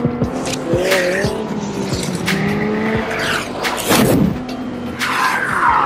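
McLaren 600LT Spider's twin-turbo V8 revving, cut with several sharp hits and a falling tyre squeal near the end.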